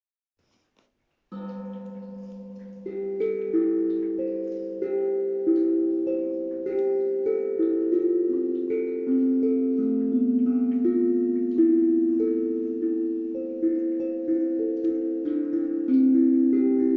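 Calm instrumental music: a sustained low drone with single ringing notes plucked or struck over it, each fading slowly, starting about a second in.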